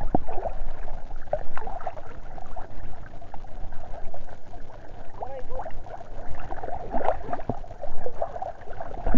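Sea water lapping and gurgling around a camera held right at the surface, with irregular bubbly splashes as small waves wash over it.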